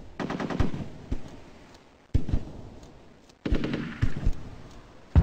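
Gunfire sound effects: a rapid burst of automatic fire just after the start, a single sharp shot about two seconds in, a second rapid burst about three and a half seconds in, and another sharp shot at the very end.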